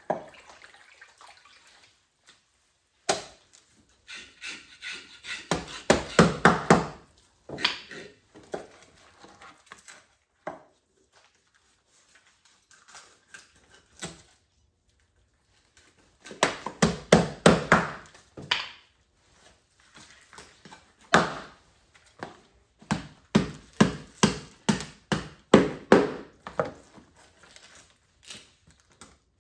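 Knife chopping on a cutting board, in runs of quick strokes about four a second with pauses between the runs.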